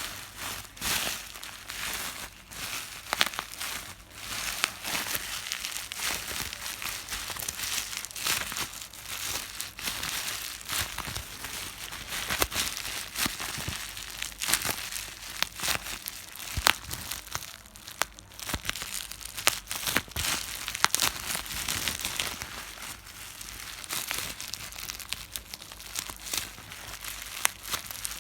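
Plastic bubble wrap being crinkled and popped: a continuous crackling rustle with many sharp, irregular pops throughout.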